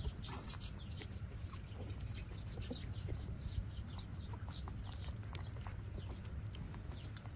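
Eight-day-old puppies squeaking and whimpering while nursing, many short high calls in quick irregular succession over a steady low rumble.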